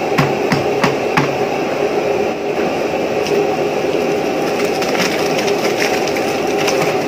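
Plastic buckets knocking against the rim of a large aluminium pot as fermented rice is tipped into the water: a few sharp knocks, most in the first second and a half, over a steady rushing noise.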